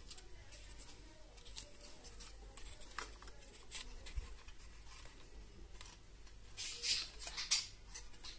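Hands handling the plastic housing and circuit board of an Opel Zafira dashboard clock/display unit: light plastic clicks and scraping as the board is worked out of its case, with a burst of louder clicks near the end.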